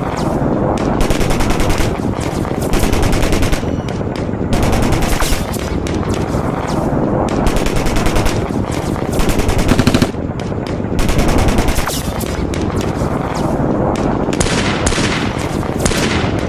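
Battle sound effects: repeated bursts of rapid automatic gunfire, each about a second long, over continuous background gunfire.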